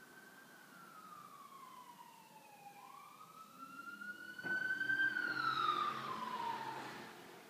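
Emergency vehicle siren wailing in slow falling and rising sweeps, growing louder about halfway through and then fading away. A brief knock sounds about halfway in.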